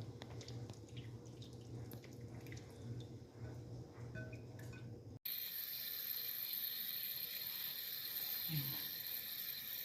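Tap water running steadily, filling a basin, starting abruptly about halfway through; before that, a low hum with a few small clicks.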